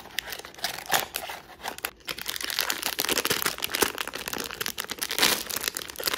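The foil inner bag of a Pop Mart blind box crinkling as it is pulled out, handled and torn open: a dense, continuous crackle of thin foil packaging.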